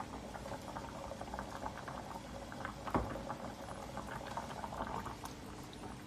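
Pickled-vegetable fish broth bubbling in a pan, a dense steady crackle of bursting bubbles. A single knock sounds about three seconds in.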